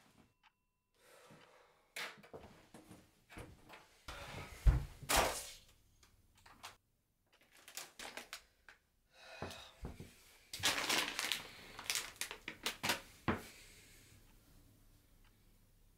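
Handling noises from a person moving about a small room: scattered knocks and thumps with rustling. The heaviest thump comes about five seconds in, and a busier stretch of clattering and rustling comes about ten to thirteen seconds in.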